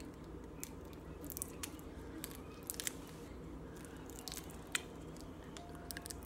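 Clumpy slime being kneaded and stretched with lotion mixed in, giving faint, scattered squishy clicks and pops.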